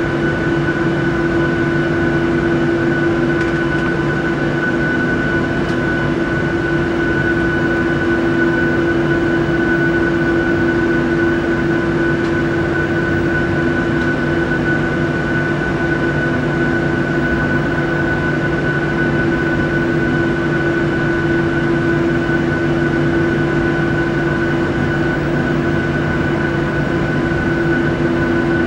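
Jet airliner's turbofan engines running steadily at taxi power, heard inside the cabin as a constant hum with a high whine and a lower drone over it.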